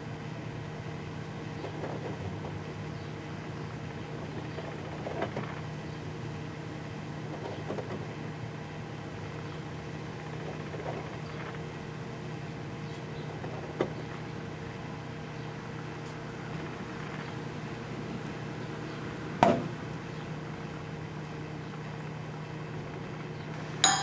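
Sharp Half-Pint microwave oven running with a steady hum while heating a cider-filled balloon, with a few faint ticks and one sharp snap about three-quarters of the way through.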